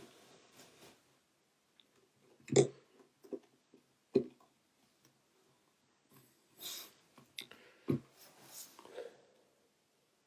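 A few light knocks and taps, with short scraping or breathy hisses in between, typical of handling tools and phone parts on a work surface.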